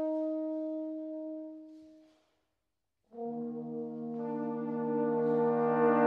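Brass quartet in concert: a single held note fades away, then after about a second of silence the ensemble comes in together on a chord that swells louder.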